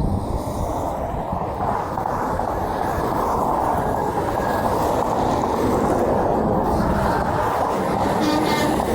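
Steady noise of heavy interstate traffic: semi trucks passing with tyre and engine noise, no horn blowing.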